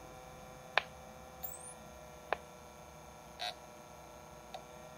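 Quantum SCSI hard drive trying to start: sharp clicks about a second in and again past two seconds, a short buzz around three and a half seconds, and a faint tick later, over a faint steady hum. The drive is not spinning up or seeking, which the owner takes for head stick, with the heads gummed to the platters.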